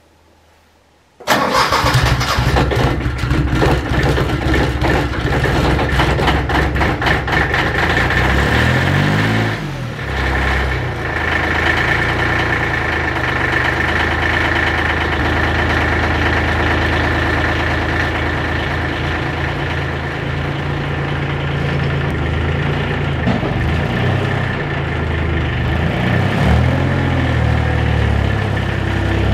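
Compact tractor engine starting about a second in and running unevenly at first. Its pitch falls around ten seconds in, and it then settles into a steady idle.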